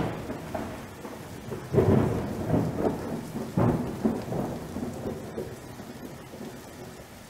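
Thunderstorm sound effect: steady rain with several rolling rumbles of thunder in the first half, fading toward the end.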